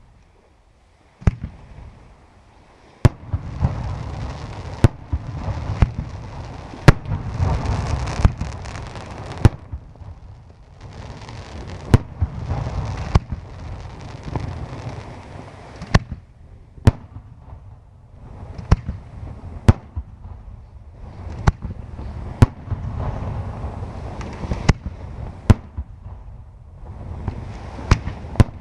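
Aerial fireworks shells bursting in a night display: sharp bangs about once a second, starting about a second in, with a low rumble carrying between them.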